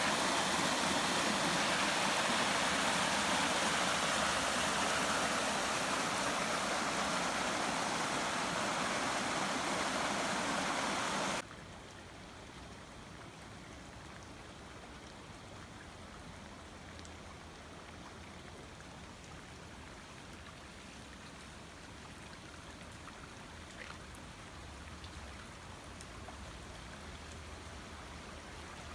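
Muddy storm runoff rushing down a steep drainage slope in a loud, steady wash of water. About eleven seconds in it cuts to a much quieter, steady sound of floodwater flowing across the street.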